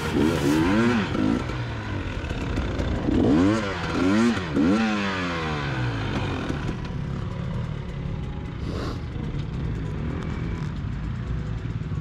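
Two-stroke enduro motorcycle engine revving in quick rises and falls, a short burst near the start and several more blips from about three to six seconds in, then running more steadily at a lower level.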